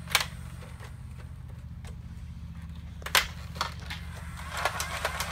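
Plastic clicks and rattles of a Nerf Rapidstrike's dart magazine being loaded and handled: one sharp click just after the start, a louder snap about three seconds in, then a run of small quick clicks near the end. A steady low hum runs underneath.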